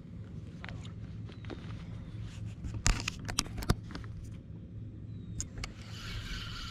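Scattered clicks and knocks of gear being handled in an aluminium jon boat over a steady low hum, with a cluster of louder knocks about three seconds in and a hiss coming up near the end.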